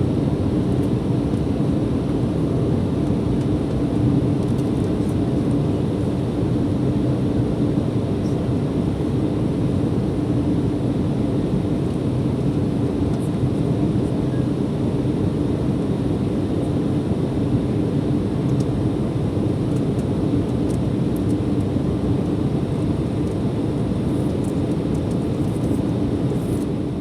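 Steady cabin noise of an Embraer ERJ-175 airliner in flight: rushing airflow and the drone of its GE CF34-8E turbofan engines, with a constant low hum.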